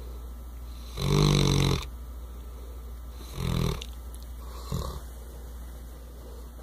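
English Mastiff snoring in her sleep: a long, loud snore about a second in, a shorter one just past three seconds, and a brief one near five seconds.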